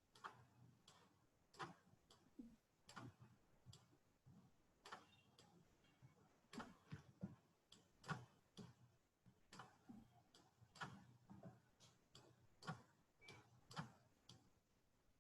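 Faint, irregular clicking of a computer mouse, about one to three clicks a second, some in quick pairs.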